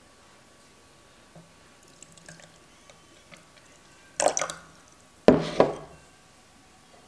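Thick, cloudy homemade doburoku rice wine poured from a jar into a glass tumbler, in two short splashing pours about a second apart.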